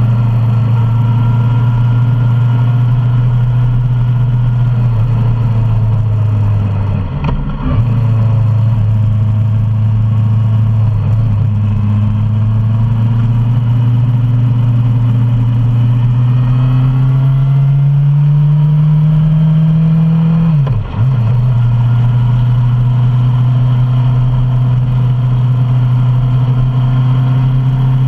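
Suzuki Bandit 650's inline-four engine running on the road, its note climbing slowly for several seconds as the bike accelerates. The sound breaks briefly twice, about seven and about twenty-one seconds in, and the second time it drops to a lower note, as at a gear change.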